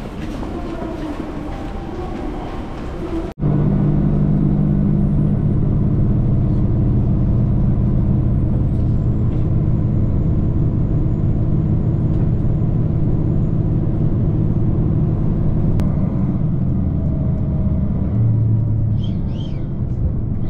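A softer rushing noise cuts off sharply a few seconds in. A loud, steady low mechanical hum follows, with a faint high whine above it, and shifts slightly near the end.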